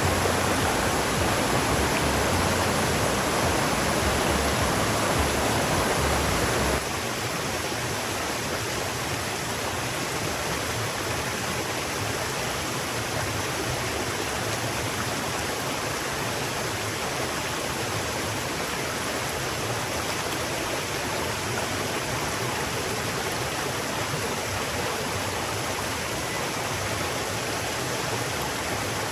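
River water rushing and flowing steadily. About seven seconds in it drops abruptly to a quieter, thinner rush, then runs on evenly.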